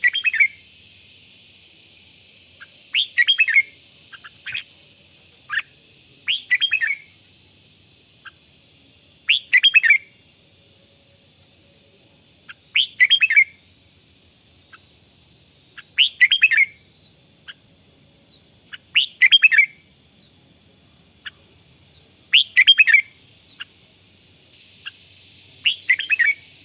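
Red-whiskered bulbul singing short, quick warbled phrases, repeated at even intervals of about three seconds. A steady high-pitched tone runs underneath.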